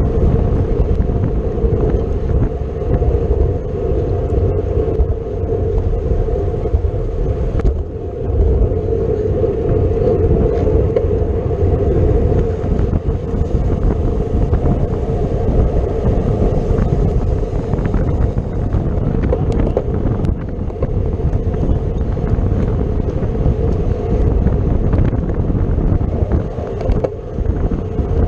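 Steady wind rush over the microphone and road noise from a road bicycle ridden at race speed, with a constant low hum underneath.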